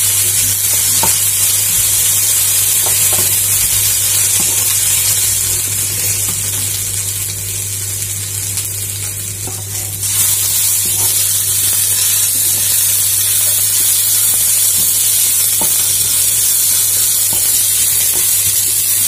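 Sliced onions, ginger and garlic frying in a little oil in a kadhai, sizzling steadily as they are stirred with a wooden spatula, with a few light spatula taps. The sizzle dips for a few seconds and comes back abruptly about halfway through.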